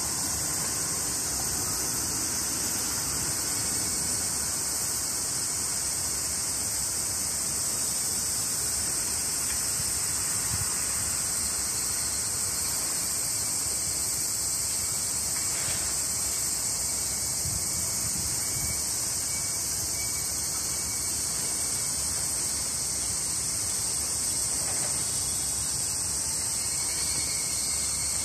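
Steady chorus of insects, a continuous high-pitched shrill that does not change, over a faint low rumble of wind.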